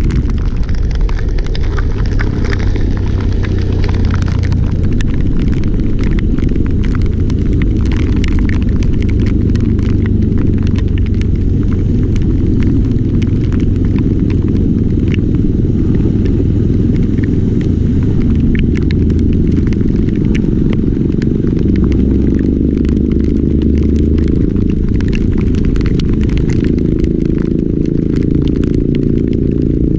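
A vehicle on the move: a loud, steady low rumble with many fine crackling ticks over it.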